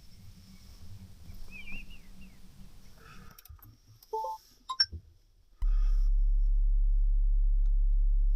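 Faint outdoor ambience with a brief bird chirp, then a few small clicks and chirps. About two-thirds of the way through, a car engine starts running with a loud, steady low hum that begins abruptly.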